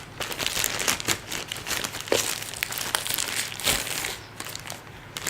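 Packaging crinkling and rustling, with small clicks and a little tearing, as a boxed Boya BY-M1 lavalier microphone is unpacked by hand.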